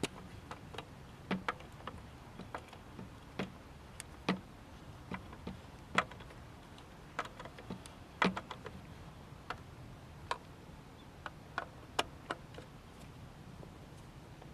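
Irregular clicks and taps of hand tools and small metal and plastic parts being handled while screws are fitted on a BMW E39's crankcase vent valve assembly, over a faint steady hum.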